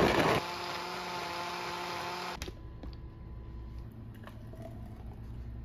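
KitchenAid countertop blender's motor running with a steady whine, blending a smoothie with frozen pineapple chunks; it is loudest in the first half-second and cuts off suddenly about two and a half seconds in. A few faint knocks follow.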